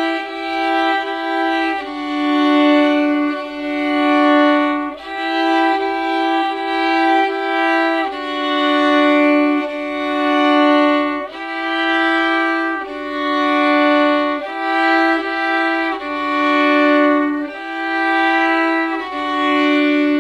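Two violins bowed together, playing two simple beginner tunes at once on the D string: long, even bow strokes, with two notes sounding at a time and the notes changing every second or two.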